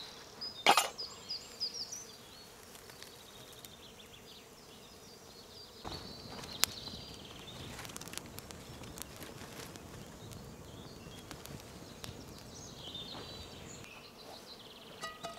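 Small wood campfire crackling as dry twigs catch, a steady hiss with many scattered sharp pops, from about six seconds in. Rapid high chirping calls sound at the start and again near the end.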